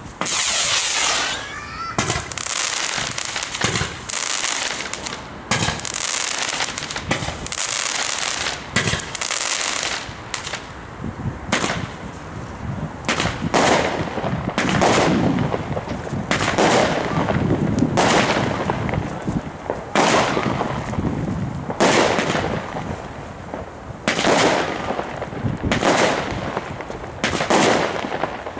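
A 66-shot Comet Midnight Special firework battery firing shot after shot, each a sharp bang about one to two seconds apart, some followed by a high hiss from the sparkling effect.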